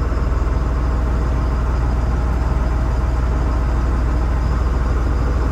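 A 2003 Freightliner MT-55's 5.9-litre Cummins inline-six diesel idling steadily, heard from inside the cab, with an even low pulsing and no change in engine speed.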